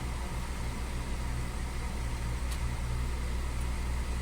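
Car engine idling: a steady low hum heard from inside the car's cabin.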